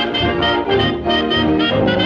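Brass-led jazz band music, trumpet and trombone playing a melody over a steady accompaniment.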